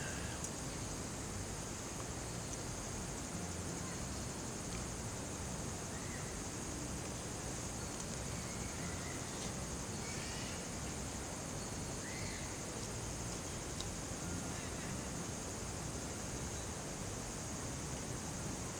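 Insects chirring steadily in a continuous high-pitched band, over a low, even background hiss of the campsite.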